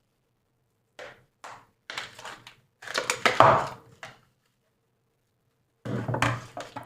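Toy packaging being handled and opened by hand: a few short knocks and rustles, the loudest run about three seconds in, then a pause before more handling near the end.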